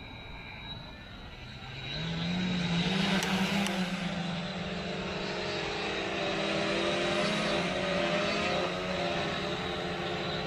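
Electric lift motors and propellers of a Titan Dynamics Cobra VTOL quadplane spinning up about two seconds in, the pitch rising as it lifts off, then a steady multi-tone drone as it hovers in quad mode.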